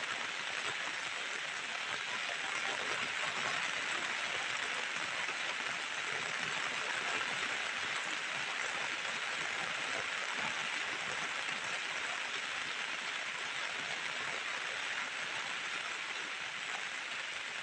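Heavy rain falling steadily, splashing on wet surfaces and pattering on a plastic umbrella.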